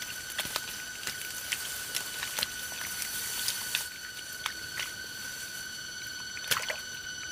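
Scattered small splashes, pats and drips of water, with a steady high-pitched whine throughout.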